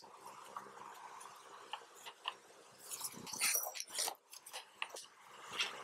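Metal parts of a motorcycle telescopic fork being handled: light clicks throughout and a burst of scraping and rattling about three to four seconds in as the damper rod and spring are fitted into the fork tube, over a faint low hum.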